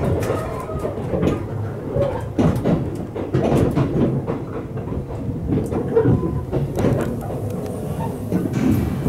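Limited express train rolling through the station, its wheels rumbling and clacking irregularly over rail joints and points.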